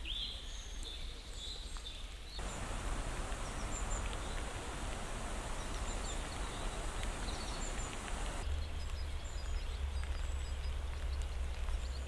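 Rain falling in a park with scattered songbird chirps. A brief chirp opens it, then about two seconds in a steady rain hiss comes in. Toward the end the hiss eases, the chirps return, and a low rumble sits under it.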